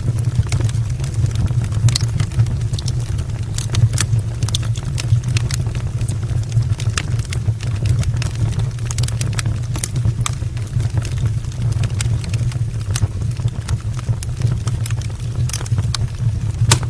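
Wood fire burning in an open brick fireplace: frequent sharp, irregular crackles and pops over a steady low rumble.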